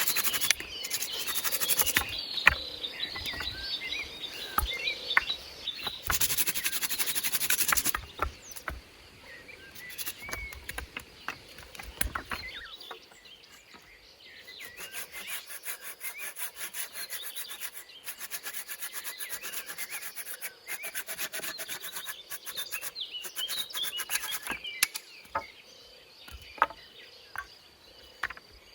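Wood being sawn by hand, with scattered knocks of wood, over insects and birds chirping.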